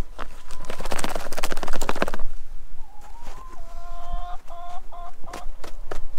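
Red plastic chicken feeder tray scraping and crunching through deep snow for about two seconds. Then a chicken calls in a string of short repeated notes, with a few light crunches near the end.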